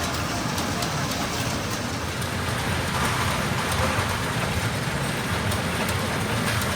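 Steady din of a pachinko parlour: masses of small steel balls rattling and pouring through the machines, an even rain-like hiss with fine ticks throughout.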